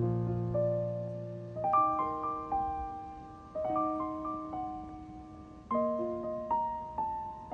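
Background piano music: slow single notes and chords struck and left to ring and fade, a new one every second or so.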